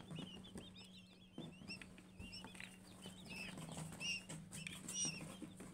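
Newly hatched quail chicks peeping: many short, high chirps in quick succession, over a faint steady low hum.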